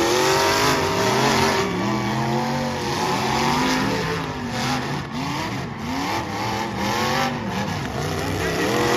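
Several demolition derby car engines revving up and down together, pitches rising and falling over and over, with a few short knocks from about four seconds in.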